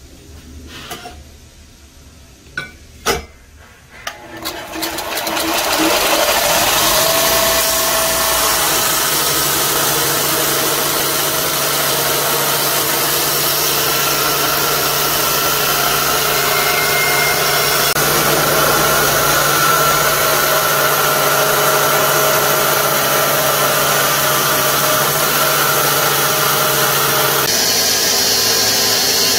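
Belt grinder running, its abrasive belt grinding the edge of a steel knife blank with a steady hum and hiss. It comes in about five seconds in, after a quieter stretch with a couple of sharp knocks.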